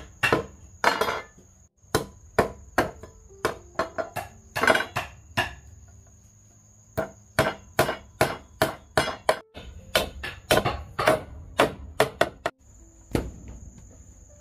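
Repeated sharp knocks of a machete chopping and striking bamboo poles, in runs of about two blows a second. Behind them is an insect's steady high-pitched buzz.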